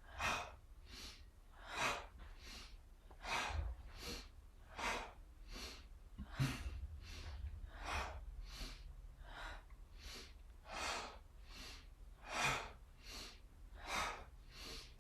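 A person breathing in a quick, even rhythm, inhaling through the nose and exhaling through the mouth in turn, about one breath sound a second. It is a paced yoga breathing exercise.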